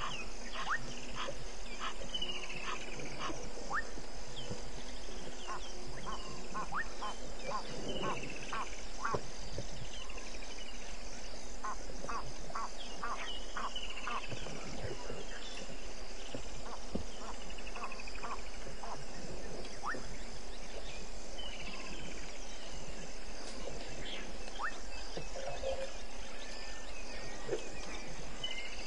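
Dusk bush chorus of insects and frogs: a steady, pulsing high insect trill with many short clicking frog calls and a few brief falling high-pitched calls scattered through it.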